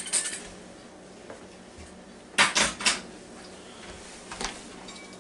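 Kitchenware clinking against hard surfaces: a click at the start, three sharp knocks in quick succession about two and a half seconds in, and a lighter one near the end.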